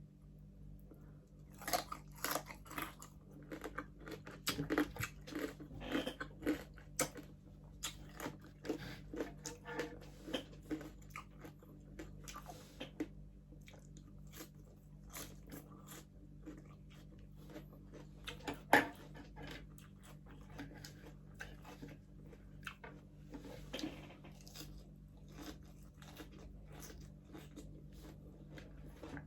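Close-up chewing and biting on crispy pata, crunching through the deep-fried pork skin. The crunches come thick and fast for the first ten seconds or so, then more sparsely, with one sharp crack a little past the midpoint.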